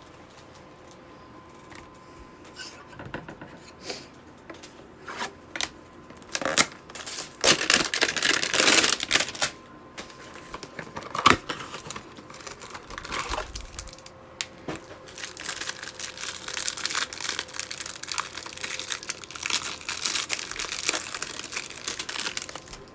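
Plastic card wrapping being torn open and crinkled as a hanger box of trading cards is unwrapped, with scattered clicks of handling at first, a loud burst of tearing about seven seconds in, and a long run of crinkling in the second half.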